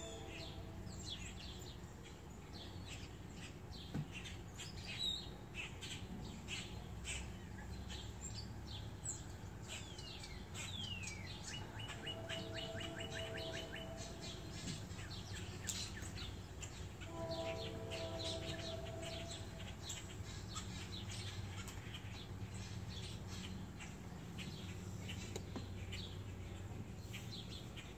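Wild birds outdoors chirping with many short calls and quick sweeps, including a fast trill of repeated notes about twelve seconds in. Two lower, held sounds with several steady tones come in about twelve and seventeen seconds in, over a steady low hum.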